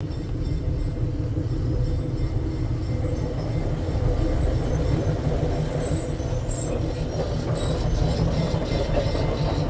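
Narrow-gauge diesel locomotive and a wooden gondola rolling slowly past at close range: a steady low engine and wheel rumble, with a few faint wheel clicks near the end.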